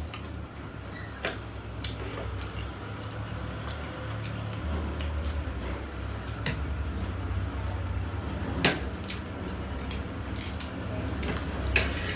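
Metal forks clicking and scraping on ceramic plates as two people eat, a scatter of sharp clinks with the strongest two near the end. A steady low hum runs underneath.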